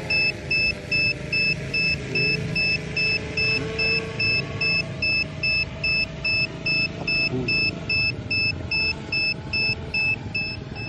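Drone remote controller beeping: short high electronic beeps at an even pace of a little over two a second, all on one pitch, over steady background noise.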